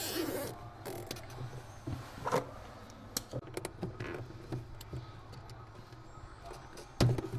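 Scattered clicks and knocks of tools and parts being handled during refrigerator repair work, with a louder knock near the end, over a low steady hum.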